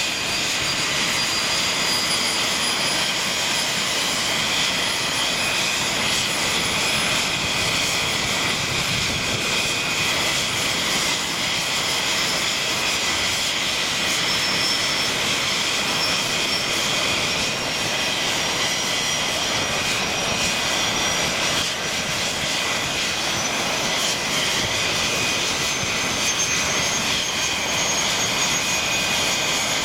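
English Electric Lightning's twin Rolls-Royce Avon turbojets running at ground idle: a loud, steady jet whine over a rushing noise, its pitch creeping up slightly near the end.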